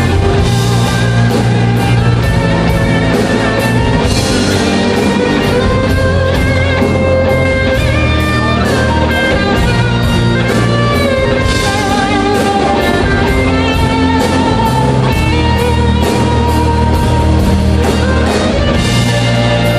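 Instrumental break in a live rock song: guitar leads the melody over bass and drums keeping a steady beat, with no singing.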